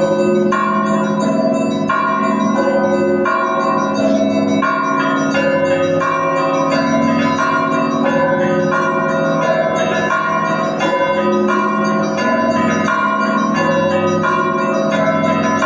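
Russian Orthodox monastery bells rung together in a festal peal: many bells of different pitches struck over and over in a steady rhythm, their ringing overlapping without a break.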